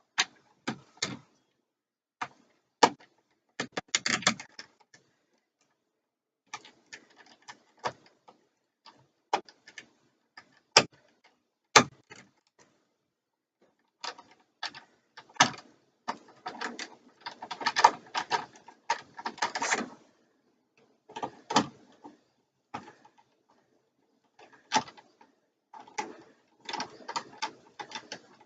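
Screwdriver driving the receptacle's mounting screws into an electrical box: irregular clicks, knocks and short scrapes of metal and plastic, with pauses between, busiest about halfway through.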